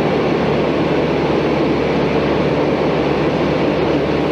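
Propeller aircraft engines making a steady drone with rushing air noise, at an even level throughout.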